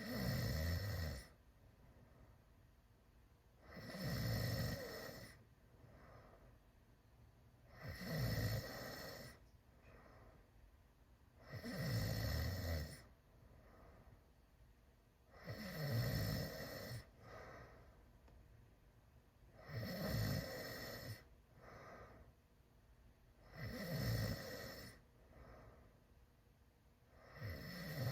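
A teenager snoring loudly with mouth wide open. A rough snore comes in a steady rhythm about every four seconds, each lasting about a second, with a softer breath between.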